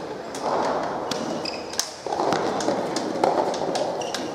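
Soft tennis play in an echoing indoor hall: a run of sharp knocks from rackets striking the rubber ball and the ball bouncing, with short high squeaks of shoes on the court and a murmur of voices in the hall.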